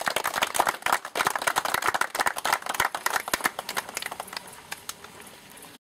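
Scattered hand-clapping from a small crowd, thinning out and fading over the last couple of seconds.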